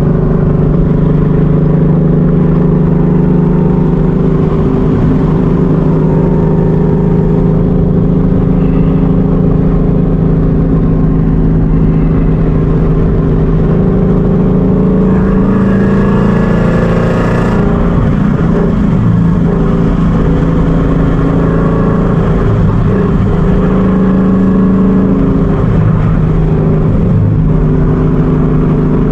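Ford Mustang GT's 5.0 L Coyote V8 with a loud dump exhaust, heard from inside the cabin at a steady cruise: a constant low exhaust tone that holds its pitch throughout.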